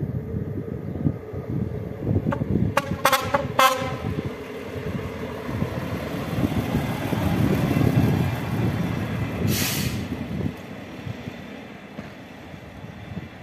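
Yellow SŽDC overhead-line maintenance railcar gives a few short toots on its horn about three seconds in, then rumbles past, loudest around eight seconds in, with a brief hiss a couple of seconds later.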